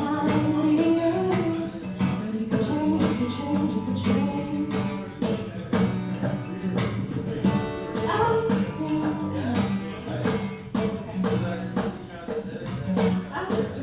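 Live acoustic cover song: acoustic guitar strumming chords over a steady drum beat.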